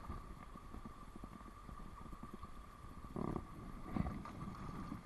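Steady faint rush of stream water spilling over a low weir, with soft bumps and rustles from handling close to the microphone about three and four seconds in.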